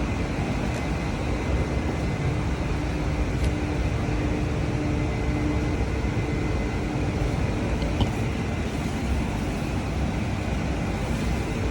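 Steady road and engine noise inside a moving vehicle's cabin while driving, with a faint steady hum.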